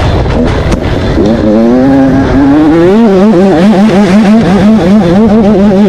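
KTM 85 two-stroke motocross bike engine under way: the revs sag briefly, then climb about a second in and hold high, the pitch wavering rapidly up and down several times a second under throttle. Wind rumbles on the bike-mounted microphone underneath.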